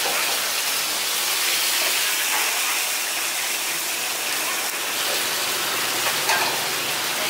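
Bánh khọt batter frying in oil in round-welled griddle pans, giving a steady sizzle.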